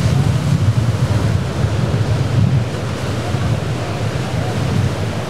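Rough surf breaking and washing over a rock jetty, with wind buffeting the microphone in a heavy low rumble.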